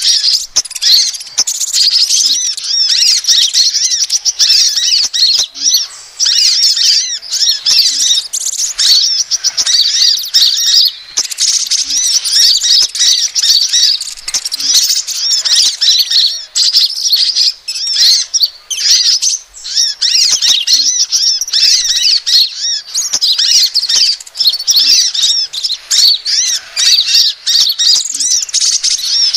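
Sunbird lure calls, kolibri ninja and crimson sunbird: a dense, continuous stream of high, thin, overlapping chirps and twitters with only brief pauses.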